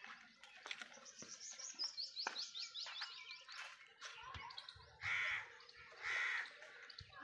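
A bird singing a fast run of high, repeated chirps for the first few seconds, then a crow cawing twice, about a second apart, near the end.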